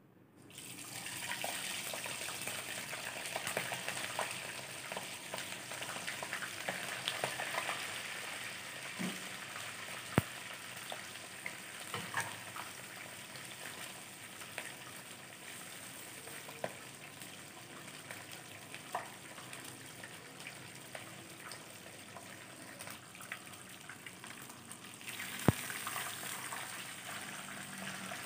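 Hot oil sizzling as a whole fish is lowered into a frying pan: the sizzle starts suddenly as the fish goes in, strongest at first and easing off a little, with scattered crackles and two sharper pops. Near the end the sizzle grows louder again.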